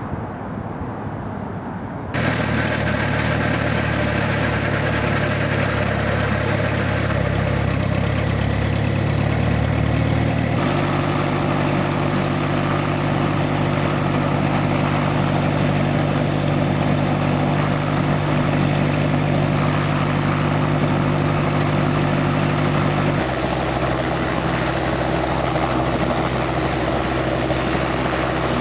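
Small two-seat piston helicopter's engine starting suddenly about two seconds in, then running at idle as the main rotor turns slowly on the ground. The steady engine tone shifts abruptly twice, at about ten and twenty-three seconds in.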